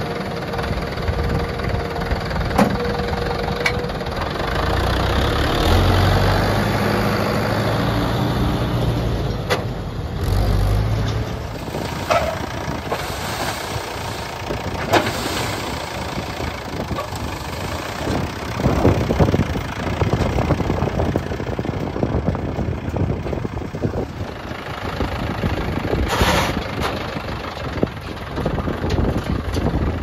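Mahindra Yuvo 415 DI tractor's diesel engine running, louder and higher-pitched from about four seconds in until about eleven seconds as it is revved, with scattered knocks and clatter.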